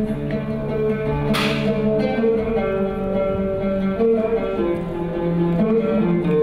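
Oud being plucked in an ensemble: a melody of changing notes over longer held notes from other instruments, with a short hiss about a second and a half in.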